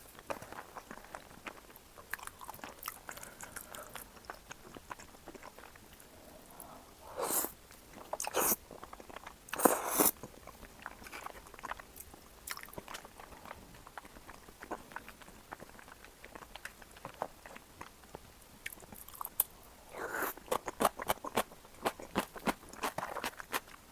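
Close-miked eating sounds from a cream tteokbokki meal: a person chewing and biting food, with many small mouth clicks. Three louder noises come about seven to ten seconds in, and a run of quick clicks near the end.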